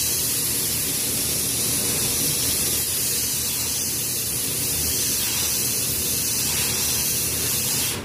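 Gravity-feed spray gun spraying paint: a steady hiss of compressed air and atomised paint that cuts off suddenly near the end.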